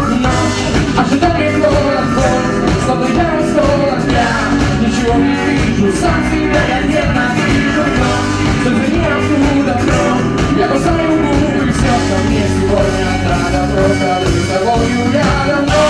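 Live band playing a song at a steady loud level, with drum kit and electric guitar.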